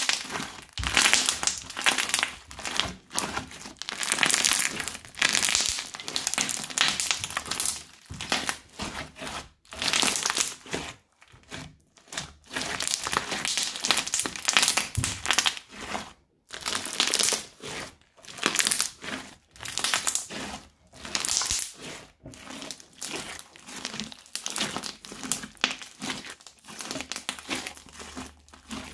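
Hands kneading and squeezing a crunchy slime mixed with small beads, giving irregular bursts of crackling and crunching with short pauses between squeezes.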